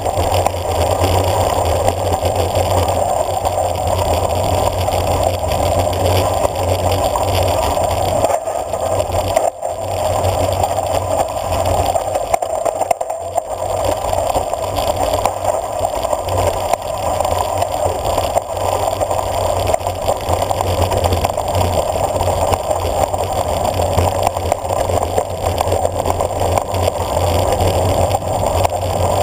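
Bicycle rolling fast downhill on a dirt road: steady wind rush on the camera microphone mixed with tyre noise on the dirt and a light rattle of the bike, briefly dipping twice about 9 and 13 seconds in.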